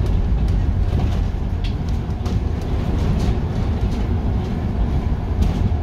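Inside a Scania articulated low-floor city bus under way: a steady low rumble of engine, drivetrain and road noise, with a few light rattles and ticks from the interior fittings.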